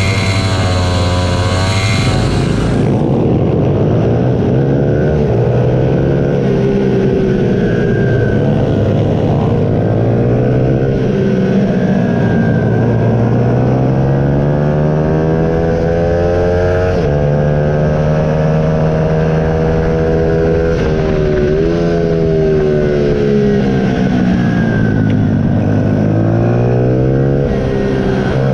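Junior supermoto motorcycle engines at close range from on board the bike. The revs hold steady for the first few seconds, then rise and fall again and again as the bike accelerates through the gears and backs off for corners in the race.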